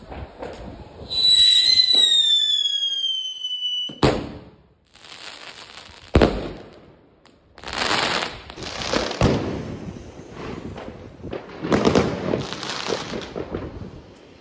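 Consumer fireworks going off: a loud whistle that falls in pitch for about three seconds, then a sharp bang about four seconds in and another about two seconds later. After that come rushing, hissing swells of noise.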